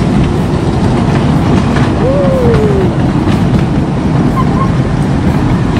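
Miniature park train rolling along its track, heard from the rear car: a loud, steady rumble with light clatter from the wheels and cars. A brief falling tone sounds about two seconds in.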